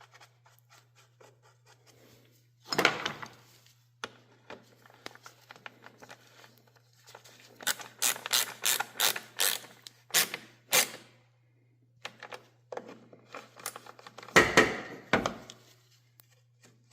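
Hand tools on the 10 mm carburetor mounting bolts of a small riding-mower engine: a wrench scraping and clicking against metal as the bolts are tightened. There is a quick run of sharp clicks midway and a couple of louder knocks, over a faint steady hum.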